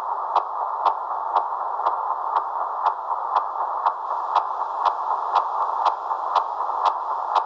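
Long-range CODAR ocean surface radar signal heard through a shortwave receiver in upper sideband: a steady hiss with a sharp tick repeating evenly about twice a second, the radar's sweep repetition.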